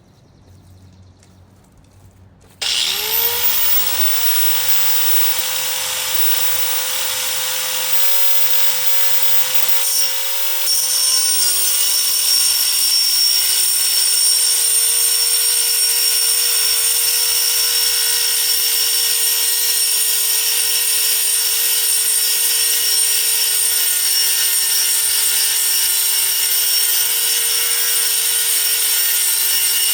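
Hammerhead 6-amp 4.5-inch electric angle grinder switched on: it spins up with a rising whine and then runs at full speed with a steady high whine. About ten seconds in the sound briefly dips, then comes back louder and holds.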